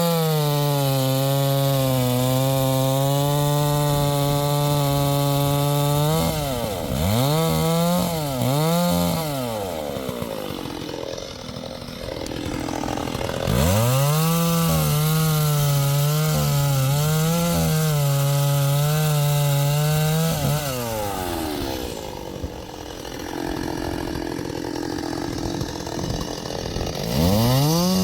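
STIHL MS 381 two-stroke chainsaw held at full throttle cutting wood for about six seconds, blipped a few times, dropped to idle, then run at full throttle again for about six seconds. It falls back to idle and revs up again near the end.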